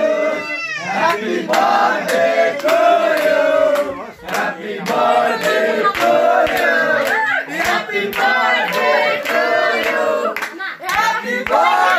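A group of people singing together, with scattered hand claps.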